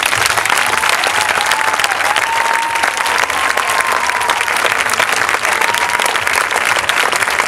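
Audience applauding loudly and steadily as a dance performance ends. A long, wavering whistle rises above the clapping from about one second in until about six seconds in.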